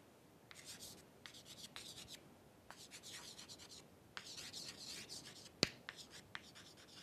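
Chalk writing on a chalkboard: a run of short, scratchy strokes starting about half a second in, with a sharp tap of the chalk on the board a little after halfway.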